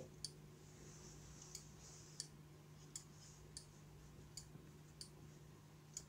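Faint, light clicks, about eight spread irregularly, from the plastic VW Golf 5 tailgate-release mechanism being worked by hand, its parts and freshly repaired switch pushrod clicking.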